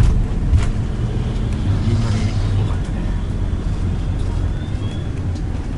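A moving vehicle heard from inside: a steady low rumble of engine and road noise, with a sharp knock about half a second in and a few lighter ticks.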